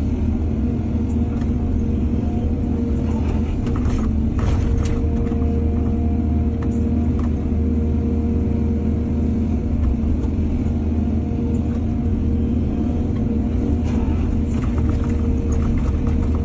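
Excavator's diesel engine running steadily under load, with clusters of clanks and rattles about four seconds in and again near the end.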